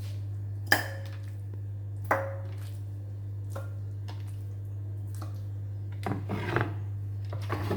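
A kitchen knife scoring raw chicken on a chopping board: two sharp knocks with a brief ring, a few faint taps, then a quick run of cutting strokes near the end, all over a steady low hum.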